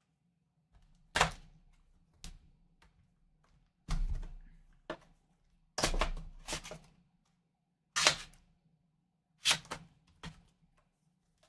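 Cardboard trading-card hobby box being handled and opened by hand: a string of short cardboard knocks, scrapes and flap rustles as the box is picked up and its lid flap is pried up and pulled open.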